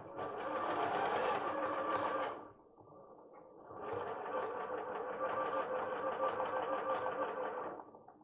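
Bernette b38 computerised sewing machine stitching: a steady run of fast, even stitch ticks for about two seconds, a brief pause, then a longer steady run of about four seconds.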